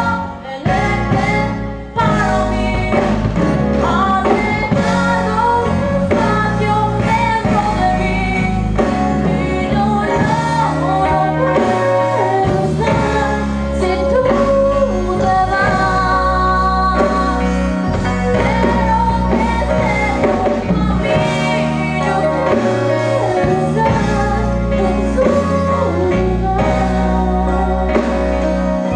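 A young woman singing a song into a microphone over instrumental accompaniment with a steady bass line; the sound dips briefly near the start, then carries on.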